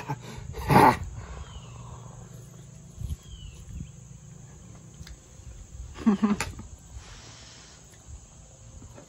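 A man eating and making a low, drawn-out "mmm" of enjoyment about six seconds in, after a short loud mouth sound near the start.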